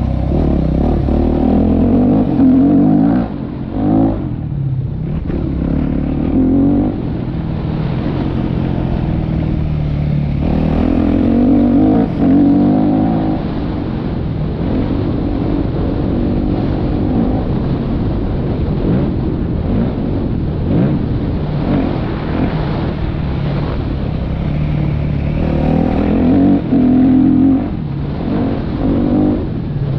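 Yamaha YZ motocross bike ridden hard around a dirt track, its engine revving up and down through the gears and corners, with a few brief throttle cuts.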